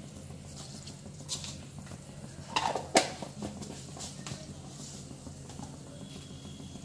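Mustard seeds beginning to splutter in hot coconut oil in an aluminium kadai: scattered sharp pops, the loudest about three seconds in, over a low steady hum.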